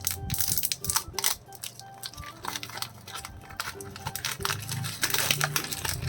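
Plastic biscuit wrappers crinkling and rustling in irregular crackles as packets are handled and opened, over background music.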